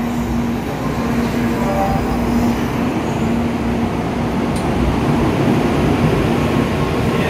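N700-series Shinkansen train pulling out of the station and gathering speed, a steady rumble with a low hum that grows slightly louder as the cars pass.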